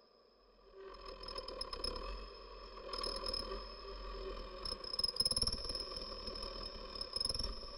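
Amplified daxophones, their wooden tongues bowed and scraped, making a dense texture of clicking, rattling and creaking tones that starts about a second in, over a steady high tone.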